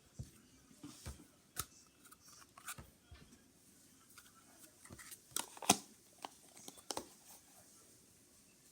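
Slime being squished and played with by hand: irregular sharp clicks and pops, the loudest a little before six seconds in.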